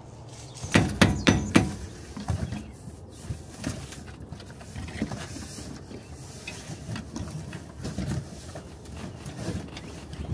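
Four loud knocks in quick succession about a second in, then scattered light clicks and rustles of handling while hands work at an outdoor air-conditioning unit's wiring.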